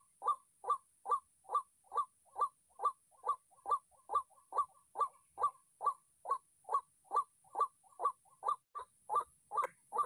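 White-breasted waterhen calling: a long, even run of 'ruak' notes, a little over two a second, without a break.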